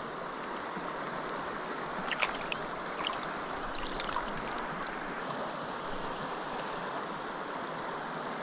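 Shallow river current running steadily. A few small splashes and drips come about two to four seconds in as a landed fish is lifted from the water.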